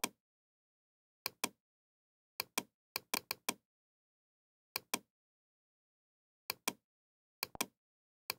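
Computer mouse button clicks, each a quick press-and-release pair, coming irregularly about eight times with dead silence between.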